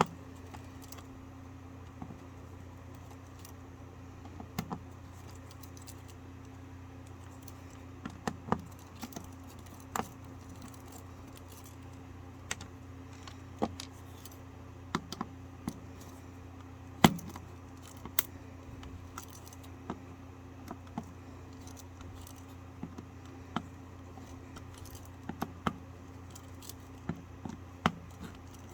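Scattered small clicks and scrapes of a pocket knife working on a plastic surge protector's casing and screws, coming at irregular intervals with the loudest click about two thirds of the way through.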